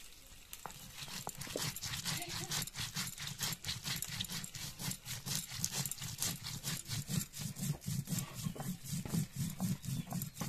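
A round grinding stone rubbed rapidly back and forth over a flat stone slab, grinding seeds and turmeric into a spice paste: a steady rhythmic stone-on-stone scraping of several strokes a second. It starts about half a second in and stops at the very end.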